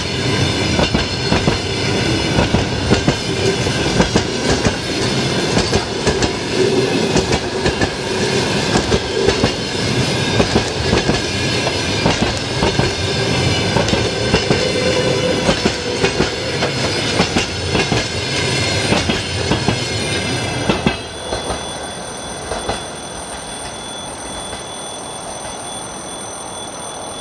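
Passenger train coaches rolling past at speed, their wheels clattering and rumbling over the rails. About 21 seconds in, the last coach goes by and the sound drops to a fainter, receding rumble with thin, high, steady ringing tones.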